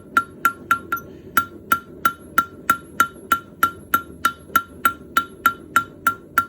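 Hammer striking a bronze leaf on an anvil in a steady rhythm of about three blows a second, each with a short bright ring, while setting the leaf's main vein and texture.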